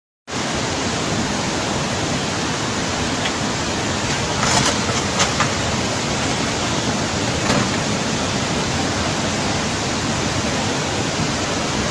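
Floodwater rushing through a street in heavy rain: a steady, dense rush of water noise. A few brief knocks stand out about four to five seconds in and again after seven seconds.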